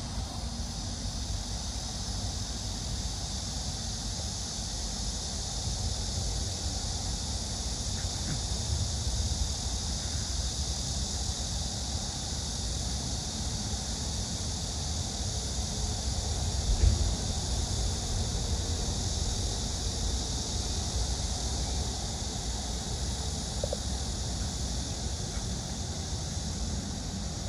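Outdoor summer ambience: insects droning as one steady, high, unbroken buzz, over a low wind rumble on the microphone that swells once, briefly, about two-thirds of the way through.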